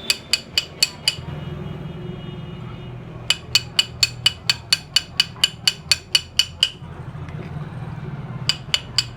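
A metal file worked in short, quick strokes across a ceiling fan's steel shaft, about four sharp clicking strokes a second, in three runs with pauses between. It is roughening the smooth shaft where the bearings seat, so the bearings sit tight and the fan's knocking stops.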